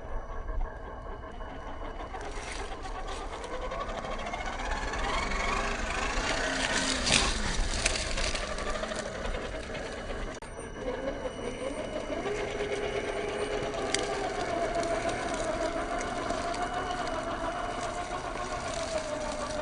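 Electric drive motor and gearbox of a 1/10-scale Lesu Unimog 406 RC truck whining, its pitch rising to a peak about seven seconds in and falling away, then holding a wavering, steadier pitch as the throttle is varied.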